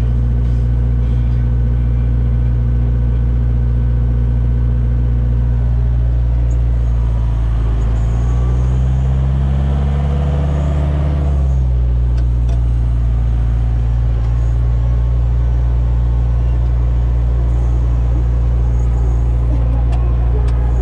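Reform Mounty mountain tractor's diesel engine running steadily, heard from inside the cab while mowing. The engine note rises for a few seconds about eight seconds in, then settles back to its steady pitch.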